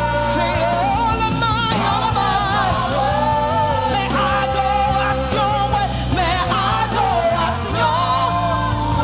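Gospel praise-and-worship song: a singing voice with vibrato over a band with a steady bass line and cymbals.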